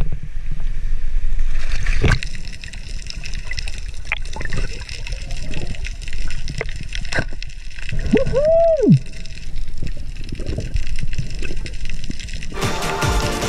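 Water sloshing and gurgling with scattered clicks, and one short tone that rises and falls about eight seconds in. Electronic music comes in near the end.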